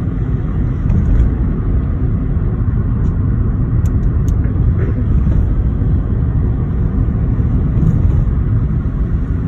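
Steady low rumble of a small car driving along a road, heard from inside the cabin: tyre and road noise with no pauses or changes.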